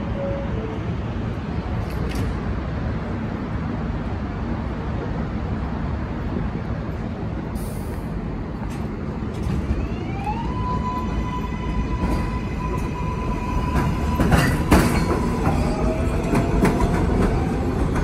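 Subway train departing an elevated station: a steady rumble, then about ten seconds in an electric motor whine that rises in pitch and levels off as the train picks up speed. Wheels knock over the rail joints near the end.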